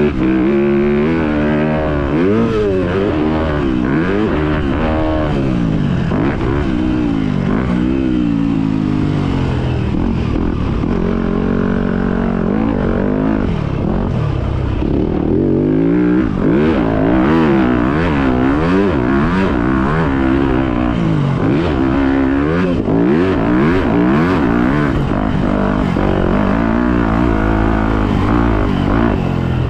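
Motocross bike engine revving hard and easing off again and again under the rider's throttle, its pitch rising and falling every second or two.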